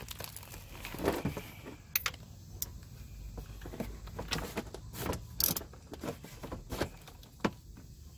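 Irregular metallic clicks, clinks and light knocks of hand tools being worked on a motorcycle, with the sharpest clinks about two seconds in and about five and a half seconds in.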